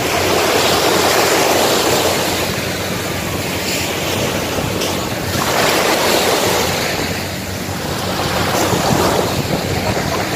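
Small sea waves breaking and washing up onto a sandy beach, the surf rising and easing every few seconds, with wind blowing on the microphone.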